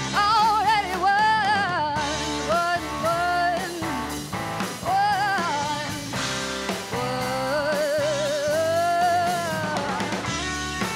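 Live alternative rock band: a woman singing with vibrato over electric guitar, bass guitar and drum kit. In the second half she holds one long wavering note.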